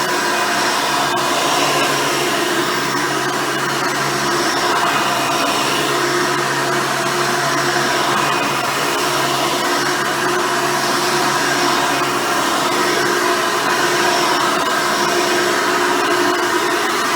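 Hoover Elite upright vacuum cleaner running steadily while vacuuming, its original 7-amp motor and seven-blade fan giving an even whine.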